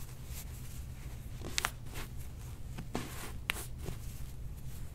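A few short sharp clicks and soft rustling of hands on skin and table as a chiropractor works the patient's toes, over a steady low hum; the big toe stays locked.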